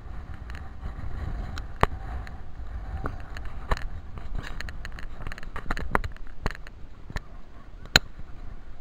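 Wind rumbling on the microphone of a walker's camera, with footsteps through rough grass and scattered sharp clicks and knocks. The loudest knocks come about two seconds in and near the end.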